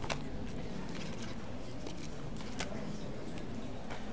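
Steady low room hum with a scattered handful of short, faint clicks or taps, two of them sharper: one right at the start and one a little past halfway.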